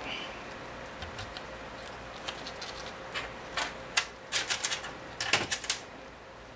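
Metal bolts clicking and clinking as they are picked over and set into a cast outboard cylinder head: scattered light clicks at first, then a quick run of sharper clinks in the second half.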